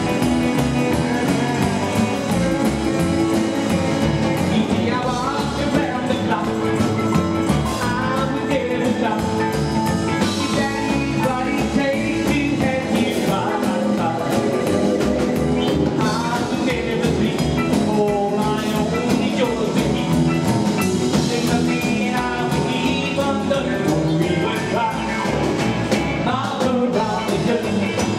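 Live 1950s-style rock 'n' roll band playing: a man singing over acoustic guitar, electric guitar, upright double bass and drum kit.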